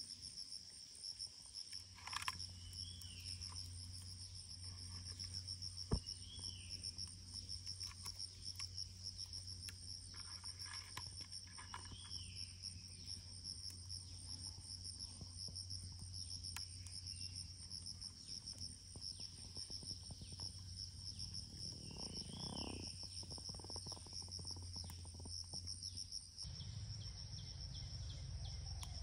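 Insects chirping in a steady, fast, high-pitched trill that runs on without a break. A short call sounds now and then above the trill, about four times.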